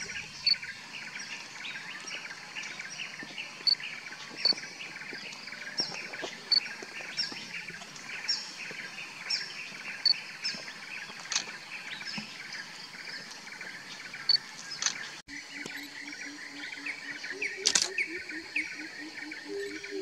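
Wild forest birds chirping and tweeting, with many short high notes repeated over and over from several birds. After about fifteen seconds, a lower note repeated rapidly joins them.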